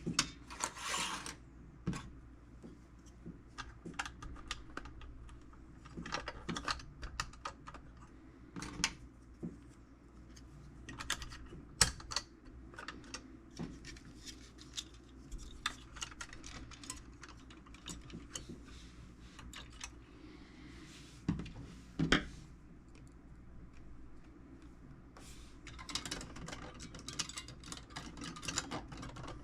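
Irregular light clicks and taps of hand work on a tool box's parts and screws, with two sharper knocks and a busier run of clicking near the end.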